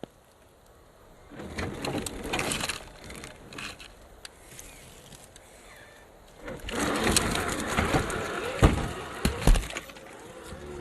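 Traxxas TRX-4 G500 RC crawler working over forest ground: spells of crunching and rustling as the tyres climb over leaves, twigs and dirt. Two heavy thumps come about a second apart, two-thirds of the way through.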